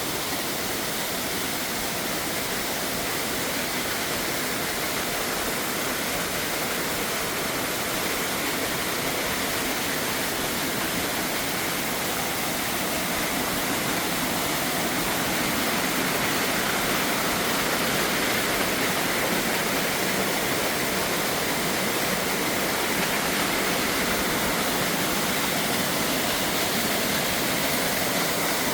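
Steady rush of running water, like a waterfall or fast stream, growing slightly louder about halfway through.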